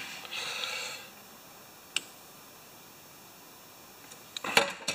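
Combination pliers clicking against a thin wire governor link as it is gripped and bent by hand: a brief rustle of handling at the start, one sharp metallic click about two seconds in, and a cluster of clicks near the end.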